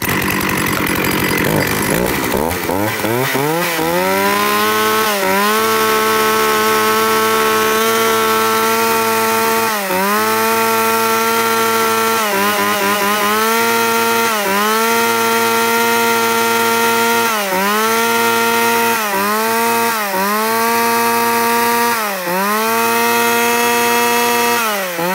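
Shindaiwa 398 40 cc two-stroke chainsaw revving up to full throttle over the first few seconds. It holds a high steady pitch, with brief dips as the throttle is eased and reopened every couple of seconds, then winds down as the throttle is released near the end.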